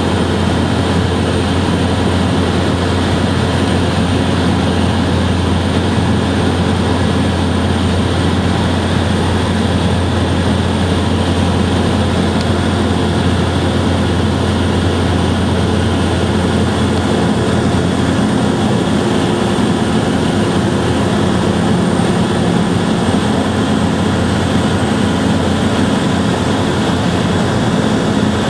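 Loud, steady engine drone with a strong low hum that shifts in pitch about two thirds of the way through.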